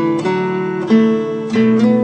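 Background music: acoustic guitar playing, with a new chord plucked about every half second.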